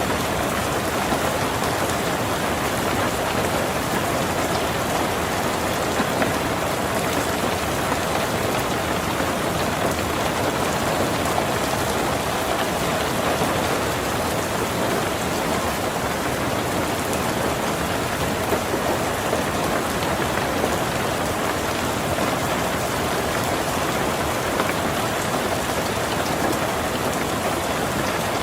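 Heavy rain drumming steadily on a tin roof, a dense, even patter of drops.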